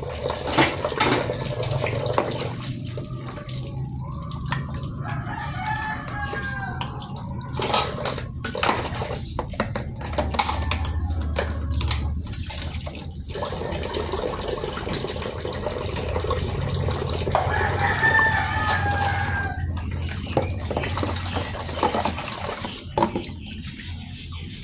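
Low-pressure tap water running and splashing into basins as dishes are rinsed by hand, with clinks and knocks of dishware and plastic basins. A rooster crows twice in the background, once about four seconds in and again past the middle.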